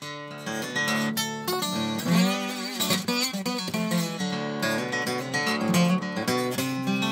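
Instrumental passage of a song led by acoustic guitar strumming.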